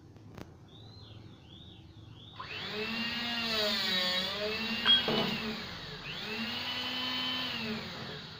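Electric-hydraulic angle-steel cutter's motor running, its pitch sagging and recovering under load, with a sharp crack about five seconds in as the blade shears through the steel angle. It then runs again and stops near the end.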